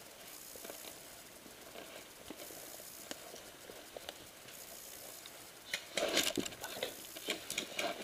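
Scattered small clicks and crackling of movement through dry brush and leaves, getting louder and busier about six seconds in.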